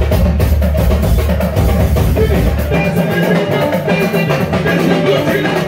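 Live band playing: a busy drum-kit beat over electric bass, with guitar and keyboards.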